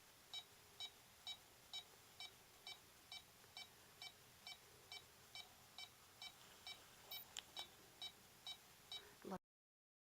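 Faint, short electronic beeps from a meter, repeating evenly about twice a second, with one sharp click about seven seconds in. The sound cuts off suddenly near the end.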